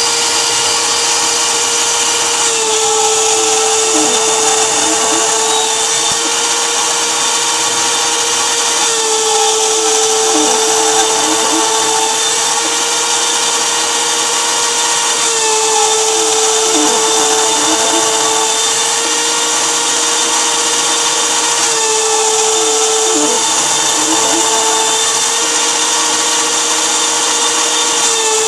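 Proxxon MF70 micro milling machine's high-speed spindle motor whining steadily as a 3 mm two-flute carbide end mill cuts a slot in a metal block. Its pitch dips slightly for a second or two about every six or seven seconds as the cutter works through each pass.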